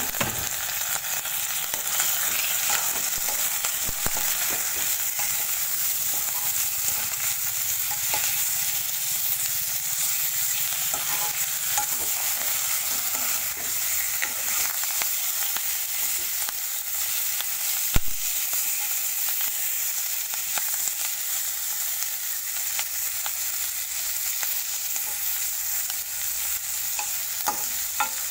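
Marinated rohu fish pieces frying in hot mustard oil in a wok, a steady sizzle, while a metal spoon scrapes and knocks against the pan now and then as the pieces are moved. One sharper clink of the spoon about 18 seconds in.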